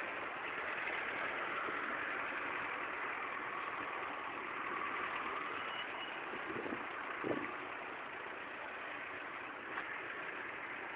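Road traffic in a jam: car engines idling and running slowly, a steady hum of traffic noise.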